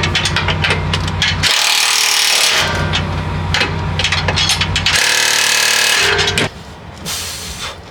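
Power tool running in long bursts with short gaps, working on the car's front suspension. It stops about six and a half seconds in.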